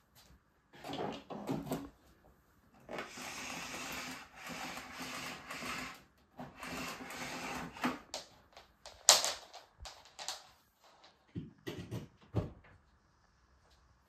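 The retractable power cord being pulled out of a Bosch BGS21X320 bagless canister vacuum cleaner in several long draws, its motor not yet running. A sharp click about nine seconds in, then a few lighter knocks.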